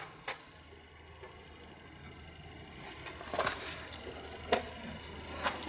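Scattered light clicks and scrapes of small metal parts being handled while the clip and washers come off a bus windscreen wiper linkage, with a sharp click about four and a half seconds in, over a faint steady hum.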